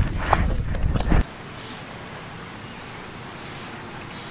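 Mountain bike rattling over rocky trail, with a heavy low rumble and sharp knocks on the helmet camera's microphone; it cuts off suddenly about a second in, leaving a steady faint hiss.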